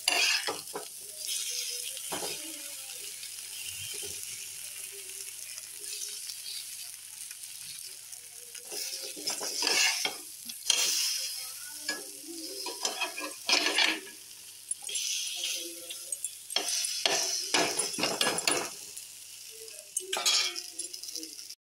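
Besan-battered potato slices sizzling as they shallow-fry on a flat griddle pan, with a metal spatula scraping across the pan several times as the slices are turned.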